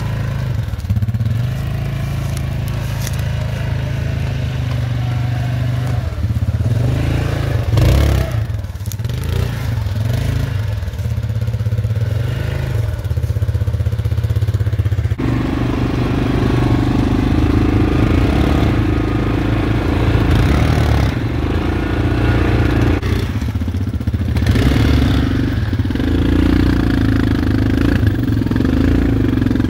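ATV engine running steadily as the quad pushes through thick brush, with branches and stems scraping and crackling against it. The engine note steps up abruptly about halfway through.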